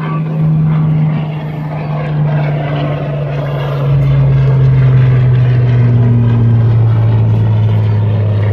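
Propeller-driven fighter plane flying past, its engine drone falling slowly in pitch as it goes by and getting louder about halfway through.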